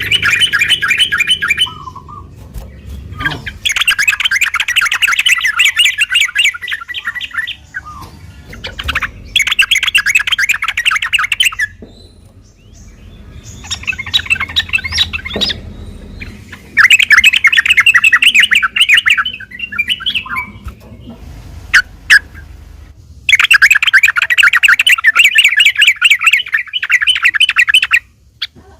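Sooty-headed bulbul (trucuk) singing in loud bouts of rapid, continuous chattering notes, each bout a few seconds long with short pauses between: the fast 'ropel' song that keepers play to lure other trucuk into answering.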